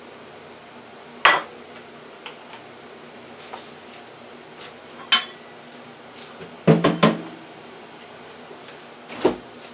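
Kitchenware clinking and knocking in separate sharp strikes, among them a metal measuring cup being set down on the counter by the bowl of pasta. There is one clink about a second in, another near five seconds, a quick cluster of three around seven seconds and one more near the end.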